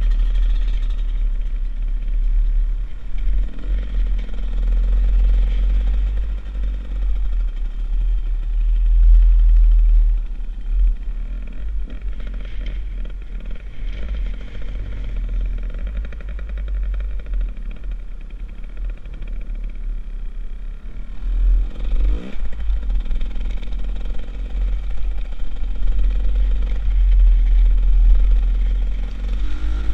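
Beta Xtrainer 300 two-stroke enduro motorcycle running as it is ridden over snow, heard from the rider's helmet under a heavy low rumble. The revs rise about two-thirds of the way through and again near the end.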